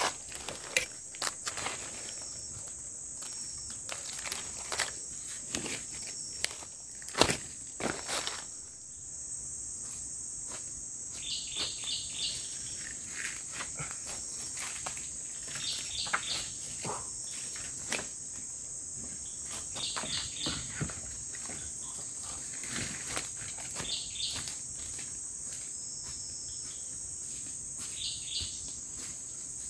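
Steady high-pitched drone of forest insects, with footsteps on the forest floor and scattered knocks and snaps that are heaviest in the first eight seconds. A short chirping call of three or four quick notes repeats about every four seconds.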